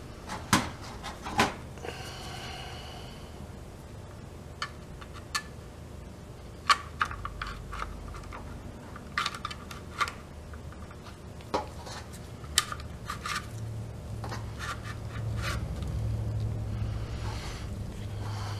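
Motorcycle fuel pump parts being handled and fitted together on a metal bench: scattered sharp clicks and taps of plastic and metal pieces, with a brief scrape a couple of seconds in. A low hum grows louder in the background over the last few seconds.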